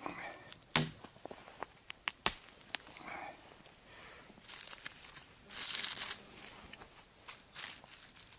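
Dry sticks being snapped and fed into a small wood fire: two sharp snaps in the first few seconds, then bursts of dry crackling rustle as the sticks are handled.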